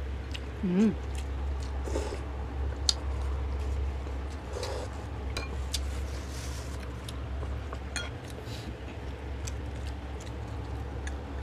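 Eating at a table: scattered small clicks and clinks of a spoon against a glass dish and of fingers picking at food, with wet mouth sounds of chewing, over a steady low hum.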